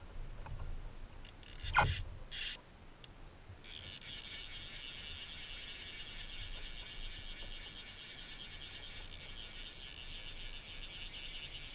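A thump about two seconds in, then from about three and a half seconds in a steady, high-pitched buzz of a fly reel's click-and-pawl drag as line runs off it.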